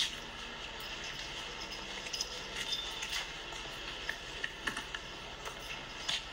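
Outdoor street ambience: a steady hiss with scattered, irregular small clicks and taps.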